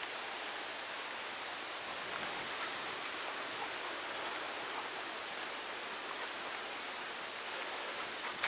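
Storm wind blowing through trees and across the microphone: a steady, unbroken hiss.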